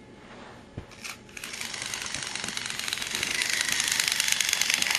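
Battery-powered TrackMaster Thomas toy train running along plastic track. A small click about a second in, then its motor and gearbox start a steady whir with rapid fine ticking that grows louder as the engine approaches.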